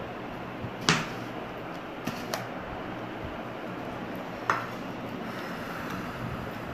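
Plastic lid of a mini ultrasonic jewellery cleaner being opened and handled: four short sharp clicks and knocks, the loudest about a second in, over a steady background hiss. The cleaner itself is switched off.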